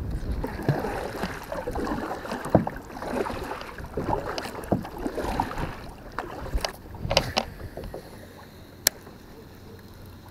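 A plastic fishing kayak being paddled: splashing and dripping of the paddle in the water, with small knocks and clicks. It quiets after about seven seconds, and there is one sharp click near the end.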